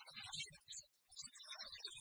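Faint, choppy talking that cannot be made out.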